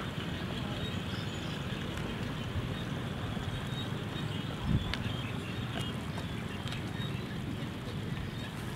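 Outdoor wind buffeting the microphone: an uneven low rumble over a steady hiss, with a soft thump about five seconds in and a few faint clicks after it.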